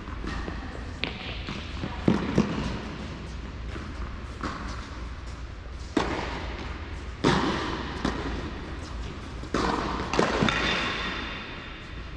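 Tennis ball struck by rackets and bouncing on an indoor hard court during a rally: sharp pops at irregular spacing, a second or more apart, each followed by a short echo in the hall.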